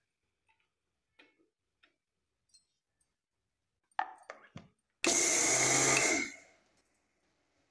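Electric mixer grinder with a steel jar: a few knocks as the jar and lid are fitted and pressed on, then the motor runs in one short burst of about a second and winds down, grinding roasted yellow mustard seeds only lightly, since mustard grinds very quickly.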